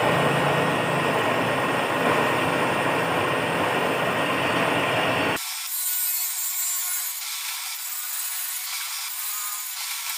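Table saw running and ripping a mahogany board to 1-inch width. About halfway through, the low rumble cuts off abruptly, leaving a thin, steady high hiss.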